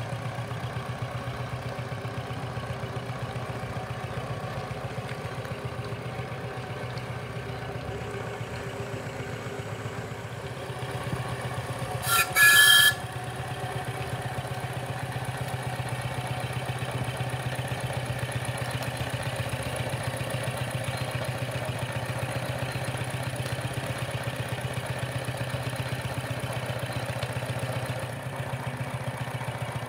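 3-inch-scale Aveling & Porter steam tractor running under way with a steady, rapid beat. About twelve seconds in, a whistle sounds once for about a second, the loudest sound.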